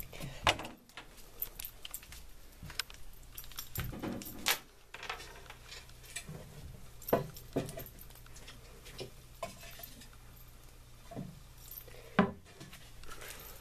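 Scattered knocks, taps and light clinks of objects being handled while someone moves about, with a few louder knocks about half a second, seven seconds and twelve seconds in.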